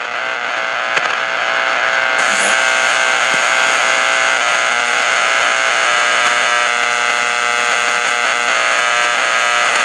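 The UVB-76 'Buzzer' station on 4,625 kHz heard through a Grundig shortwave radio: a steady buzzing tone with many overtones under a layer of static, unbroken throughout.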